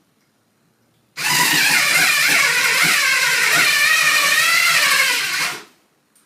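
Electric drill running for about four and a half seconds, starting about a second in, its whine wavering in pitch before it stops.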